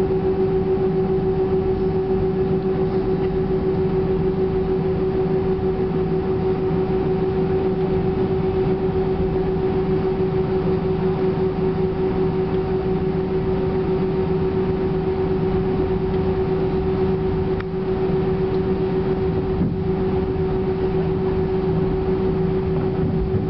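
Airbus A320-200's jet engines running at steady low power while taxiing, heard inside the cabin over the wing: a constant hum with a steady tone.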